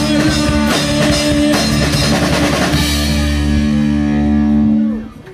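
Rock band playing live through a PA: drum kit, electric guitars and bass. The drumming thins out and the band holds a final chord, which stops sharply about five seconds in, ending the song.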